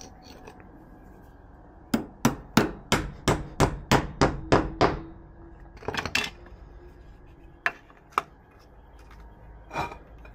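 Hammer blows: a quick run of about nine strikes, roughly three a second, then a pair of knocks and a few lighter taps, as a fixing for a conduit saddle clip goes into a brick wall.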